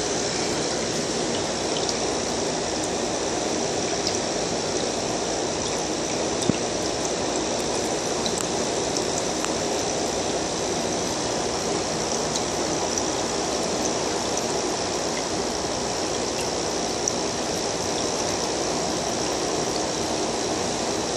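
Aquarium water trickling steadily from the tank's water circulation, with a couple of brief clicks.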